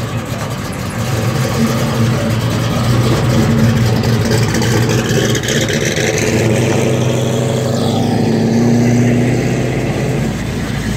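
Classic car engine running with a steady low note that swells over the first few seconds as a car pulls away, then holds.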